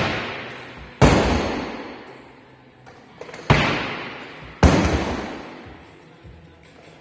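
Four heavy thuds in two pairs about a second apart, each followed by a long echo in a large hall: a loaded barbell with bumper plates and the lifter's feet striking wooden blocks and the floor during snatches.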